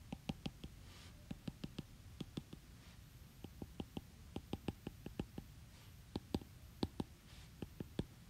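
Stylus tip tapping on a tablet's glass screen while drawing dashed lines: quick runs of sharp clicks, about four or five a second, with short pauses between runs.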